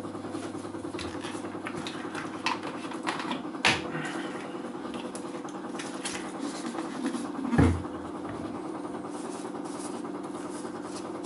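A small motor hums steadily, with scattered light clicks and brief rubbing as the repaired section of the fly rod is wiped clean.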